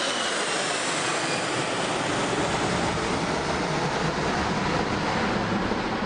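Four-engine jet airliner passing overhead: a steady, loud rush of jet engine noise, with a faint falling whine in the first second or two.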